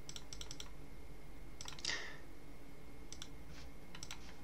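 Faint clicks of a computer mouse and keyboard in small groups: a quick run of several right at the start, then pairs about two, three and four seconds in, over a faint steady hum.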